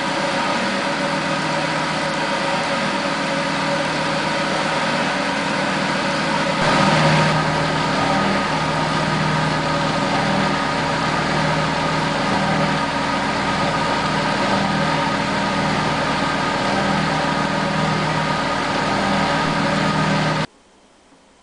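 Frigidaire spin dryer spinning: a steady motor and drum hum with several held whining tones, as the water spun from the clothes runs out of its spout into a bowl. It gets briefly louder about seven seconds in and cuts off suddenly near the end.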